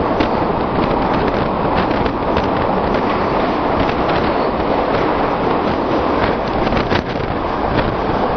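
Express train running on the track: a loud, steady rumble and rush with frequent sharp clicks and rattles from the wheels and carriages.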